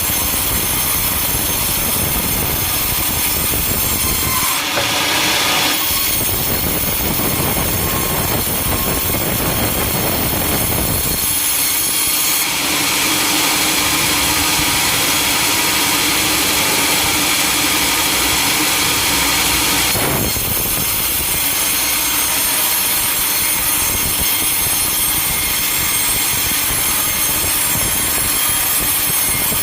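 Sawmill machinery running loudly and continuously, with saws cutting timber. The noise changes character abruptly a few times as cuts begin and end.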